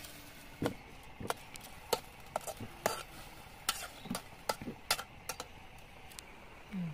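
Steel spatula stirring chopped colocasia leaves in an aluminium wok. Irregular metallic scrapes and clinks come roughly every half second as the spatula drags and knocks against the pan.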